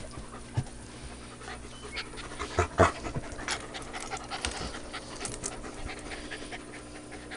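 Dog panting close up, with a few short knocks and scuffs, the loudest about two and a half to three seconds in.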